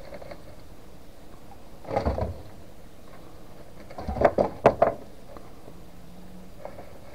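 Rock iguanas biting and chewing food pellets taken from an open hand: two short bursts of sharp crunching clicks, the second louder.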